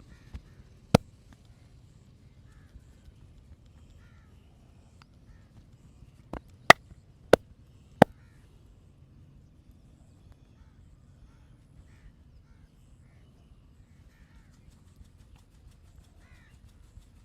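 Sharp cracking smacks from the massage: one about a second in, then four in quick succession between about six and eight seconds in, over a quiet background.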